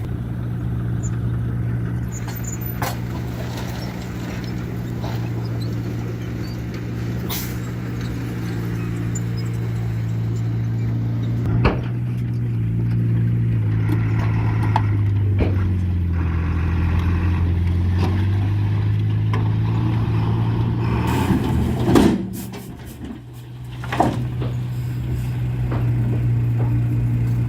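Heavy diesel engine of earthmoving machinery running steadily; its pitch sags for a few seconds past the middle and then comes back up. A few sharp knocks and clanks sound over it.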